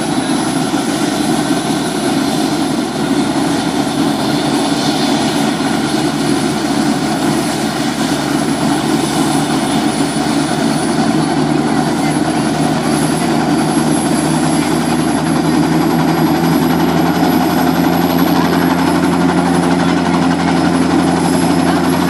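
Light helicopter running on the ground before takeoff, its rotor turning with a steady drone and a thin high whine; it grows a little louder over the last few seconds.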